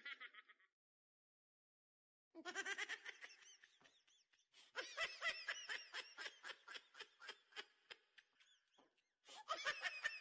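Laughter in quick repeated pulses, in three stretches separated by dead silence, with no room sound beneath it.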